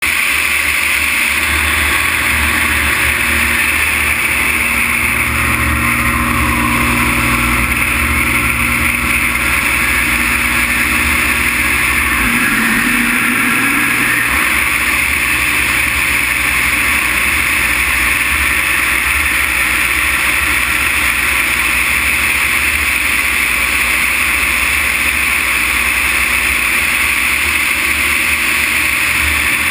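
Extra 330 LC aerobatic aircraft in flight, heard from a wing-mounted camera: its six-cylinder piston engine and propeller drone steadily under a loud rush of airflow over the microphone. About twelve seconds in the engine note briefly sags and the low end drops away, then it recovers.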